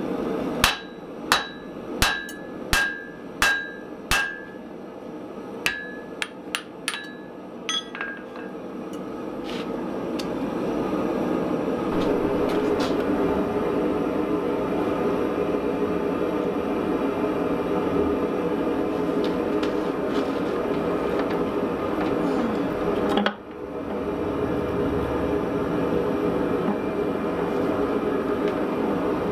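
A hand hammer striking a glowing steel hammer-head blank on an anvil: about six ringing blows, then several lighter taps. After that a forging press runs with a steady hum as a punch is driven into the hot block, with a brief drop about two-thirds of the way through.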